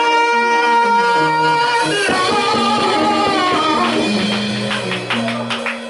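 Gospel music with singing and a band. A voice holds one long note for about the first two seconds while a bass line steps through low notes, and drum or tambourine hits come in near the end.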